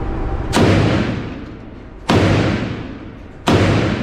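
Three shots from a .50 Beowulf AR-style rifle, about a second and a half apart, each followed by a long echo off the walls of an indoor range.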